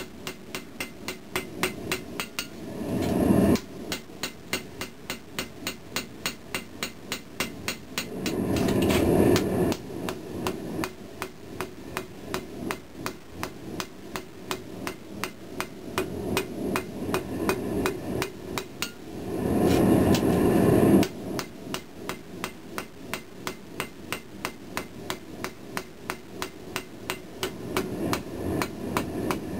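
Hand hammer striking red-hot pattern-welded steel on an anvil in quick, regular blows, about three to four a second, drawing out the blade. Three times a louder rushing noise lasts a second or two.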